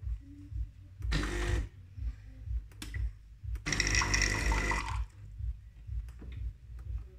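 Saeco Intelia espresso machine's vibratory water pump running in two short bursts, a brief one and then one of about a second and a half, buzzing as it pushes water through. A few short clicks fall between and after the bursts.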